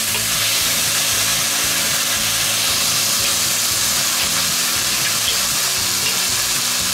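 Sausage slices and diced vegetables sizzling in a hot cast-iron Dutch oven as thick tomato sauce is poured over them, a steady frying hiss.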